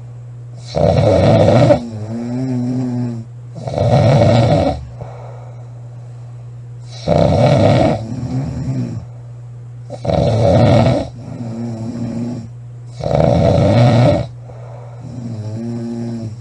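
A girl snoring loudly in a steady rhythm: five loud snores, about one every three seconds, each followed by a quieter, pitched sound before the next.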